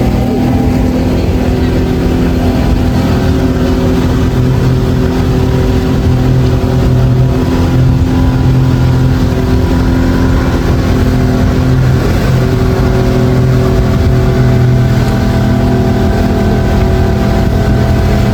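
Outboard motor of a river taxi speedboat running steadily under way, a loud, even engine note that holds its pitch, over the rush of water and air.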